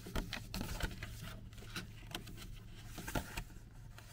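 A paper instruction booklet being handled and bent close to the microphone: irregular light rustles and small taps.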